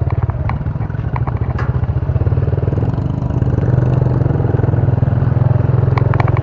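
Small motorcycle engine running steadily close by, its firing pulses even, with a few light clicks and rattles over it.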